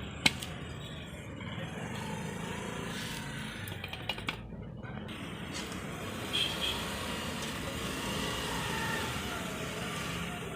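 Light metal clicks and a few clunks as a motorcycle rear drum-brake assembly is refitted, over a steady low hum. No scraping from the repositioned brake-shoe spring is heard.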